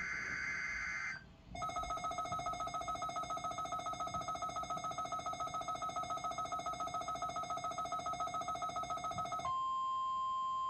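Weather radio alert tones: a warbling digital SAME header burst ends about a second in. After a brief gap, a buzzy electronic alarm tone pulses about seven or eight times a second for some eight seconds. It then gives way near the end to the steady single-pitch 1050 Hz NOAA Weather Radio warning alarm tone that opens a weekly test.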